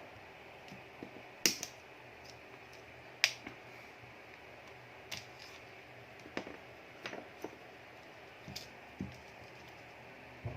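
Scattered sharp clicks and light taps from small tools and plastic phone parts being handled while an LG phone is taken apart. The two loudest clicks come about a second and a half and three seconds in, and fainter ones follow irregularly.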